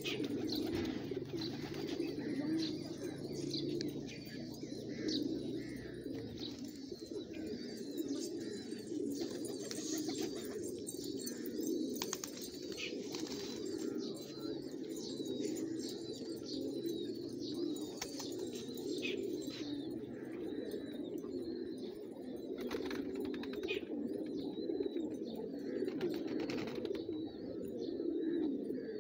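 A flock of domestic fancy pigeons cooing together in a continuous overlapping murmur, with many short high chirps and occasional wing flaps and clicks over it.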